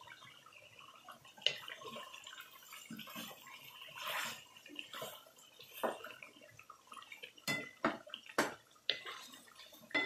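Chicken karahi gravy bubbling and sizzling in a metal karahi, with a wooden spatula stirring and knocking against the pan several times, mostly in the second half.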